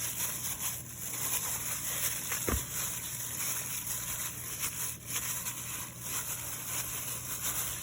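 Cubed raw chicken being mixed by hand in a bowl with egg and marinade: soft wet stirring under a steady hum and hiss, with one brief knock about two and a half seconds in.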